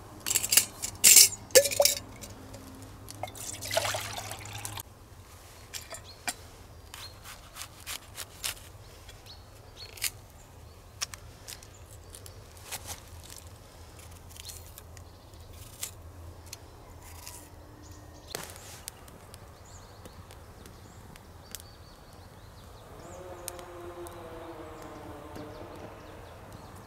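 Cookware being handled: sharp metal clinks and knocks at a stainless steel bottle, then water poured from the bottle into a metal camping pot for a second or so. Scattered small clicks and knocks of handling follow.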